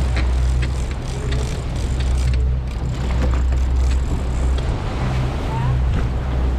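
Outboard engines of a World Cat 325CC catamaran running steadily under way, a low hum that swells and eases slightly, with wind and rushing wake water over it.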